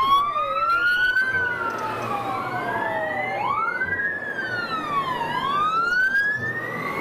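Several fire truck sirens wailing together, each pitch sweeping slowly up and down and overlapping the others, over a low rumble.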